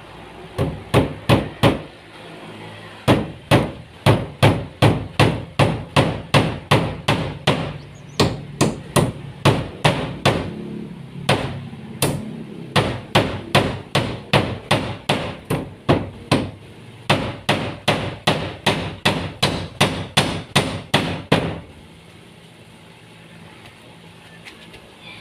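Hammer blows in steady runs of about three strikes a second, with a couple of short pauses, typical of hammering nails in carpentry work. The hammering stops a few seconds before the end.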